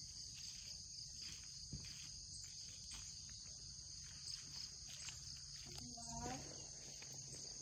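Faint, steady high-pitched insect chorus. A short voice sound comes about six seconds in.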